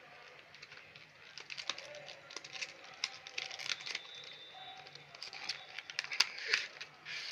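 Card packaging and plastic wrapping rustling and crinkling in the hands as a fidget spinner is worked out of its box, with many small scattered clicks and scrapes.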